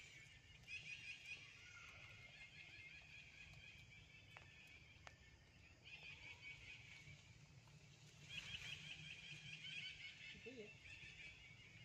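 Faint outdoor ambience: continuous high-pitched chirping and trilling of small animals, growing louder about eight seconds in, over a low steady hum.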